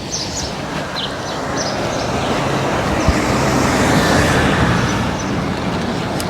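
Road vehicle noise, a dense rushing sound with a low engine note, swelling to a peak about four seconds in and easing off.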